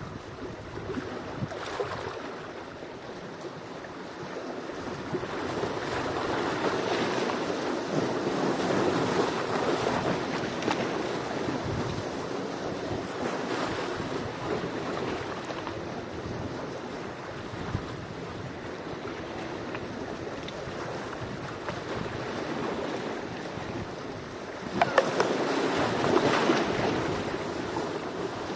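Sea waves washing in and drawing back, a slow swell and fade of surf, with a sharper, louder wave breaking near the end.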